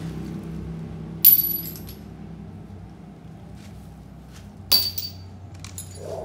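Metal hand tools clinking against metal: one sharp ringing clink just over a second in, then a few lighter clinks and taps near the end, over a low steady hum.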